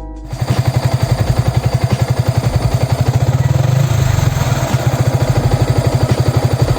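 A single-cylinder Yamaha Vixion motorcycle engine idling, with a steady, rapid exhaust pulse of about ten beats a second.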